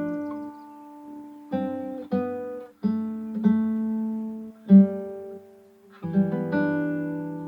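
Acoustic guitar music: slow chords struck one after another, each left to ring and die away.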